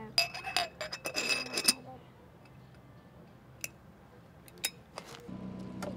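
Glass jar clinking and rattling in a quick flurry of ringing taps, followed by a few single ticks.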